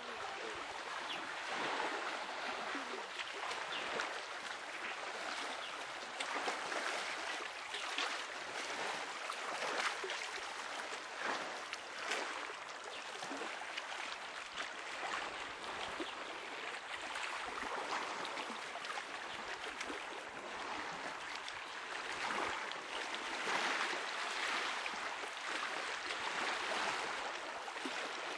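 Small sea waves lapping and washing at the water's edge: a steady wash of water broken by many small splashes.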